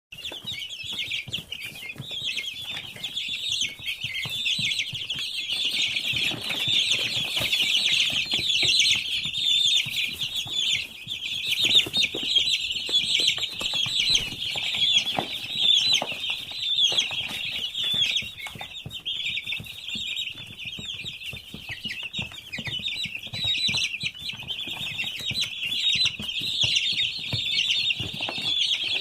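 A large flock of 19-day-old chicks peeping without pause, a dense chorus of high overlapping chirps, with scattered short clicks and taps among them.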